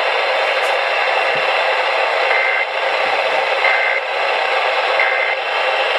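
Emergency Alert System end-of-message signal heard over FM radio: three short bursts of two-tone data, about 1.3 s apart, marking the end of the alert. A steady, loud hiss of radio noise lies under them.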